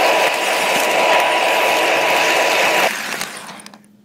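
Lionel O gauge Milwaukee Road model train running on its track, wheels and motor making a steady dense rattle with a high whine, heard from right on the train. About three seconds in the sound drops away and fades out as the train comes to a stop.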